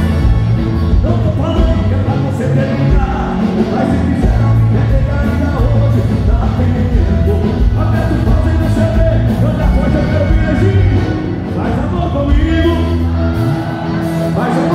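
A live band playing loudly through a PA, with a male vocalist singing over accordion, electric guitar and drums, and a heavy, steady bass.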